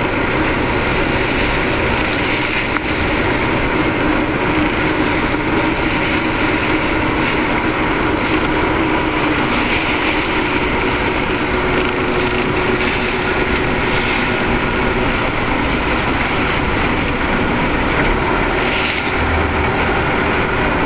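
Boat engine running steadily underway, mixed with the rush of wind and water.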